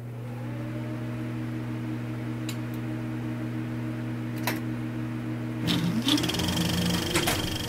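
A steady low whirring hum with a few sharp clicks. About two-thirds of the way through, it breaks up into a rising tone.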